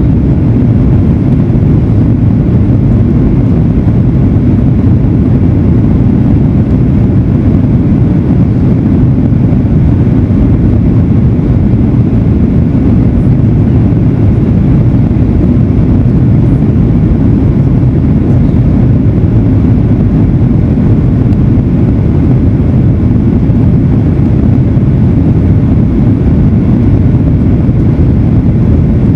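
Steady low rumble of a Boeing 737-900ER airliner's engines and airflow, heard from inside the cabin.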